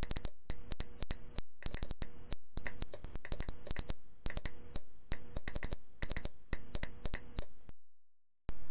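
Rapid high-pitched electronic beeps of uneven length in irregular groups, each starting with a click, in a Morse-like rhythm; they stop abruptly near the end, leaving a faint steady hiss.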